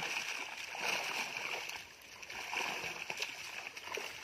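Pond water splashing and sloshing as a cast net is hauled in through the shallows, in irregular swells.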